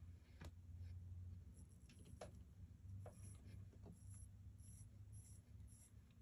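Faint clicks and light high ticks, roughly two a second, from fingers working the crown of an automatic skeleton watch while setting and hacking its movement, over a low steady room hum.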